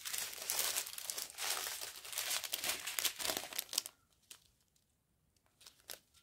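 Small clear plastic sachets of round diamond painting drills crinkling as they are handled, for about four seconds, then a near-silent pause with a few faint ticks.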